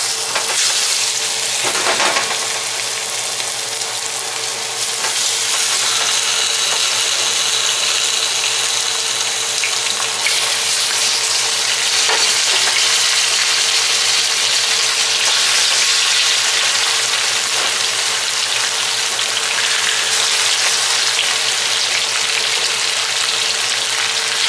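Bone-in chicken thighs searing in hot fat in a pot: a steady, loud sizzle that grows louder about five seconds in, with a few short clicks.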